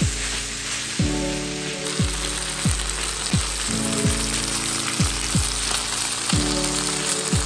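Beef, green beans and onions sizzling in a hot frying pan, a steady frying hiss. Background music with a steady beat of deep falling bass notes plays over it.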